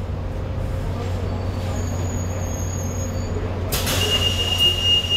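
Kawasaki-built Hong Kong Light Rail car with a steady low hum. Near the end there is a sudden burst of hissing air, followed by a steady high-pitched tone held for a couple of seconds.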